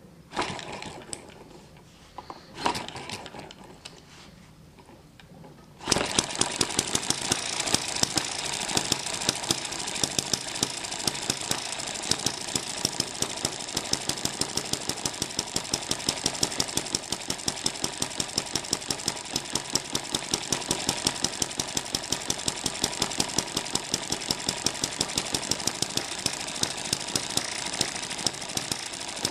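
M94 model hit-and-miss engine started by hand-spinning its flywheels, with a few knocks before it catches about six seconds in. It then runs with a fast mechanical clatter and a regular, louder beat.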